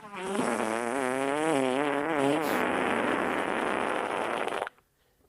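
A long fart with a wobbling, wavering pitch, lasting about four and a half seconds before cutting off suddenly.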